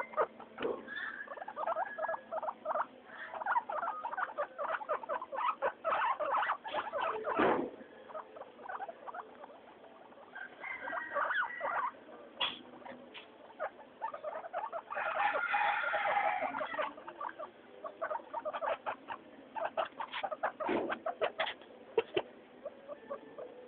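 Guinea pigs squeaking and chattering in quick runs of short calls, several bursts in a row, with a longer, denser stretch of calling midway.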